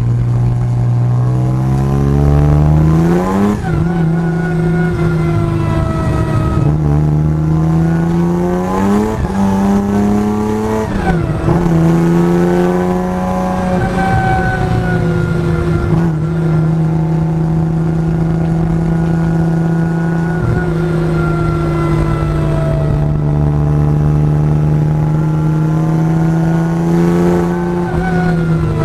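Supercharged straight-six of a BMW 325i E36 Compact race car heard from the cockpit under hard acceleration: the revs climb, drop sharply at a gear change a few seconds in, climb again and drop at a second change about eleven seconds in, then hold fairly steady for a long stretch before falling near the end.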